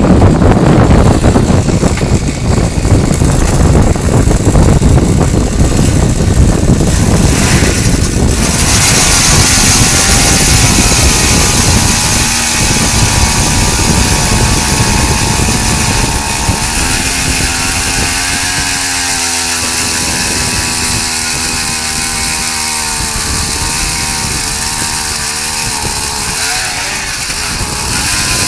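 Gas-powered ice auger engine running hard as the auger bores down through lake ice, with a rough grinding noise. About eight seconds in, the sound turns smoother and steadier, with a clear engine tone that wavers in pitch, as the auger runs out of the hole.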